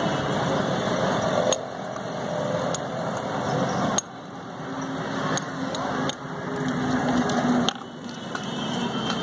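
A motor running steadily amid street noise, with a low hum. The sound drops sharply and builds back up several times.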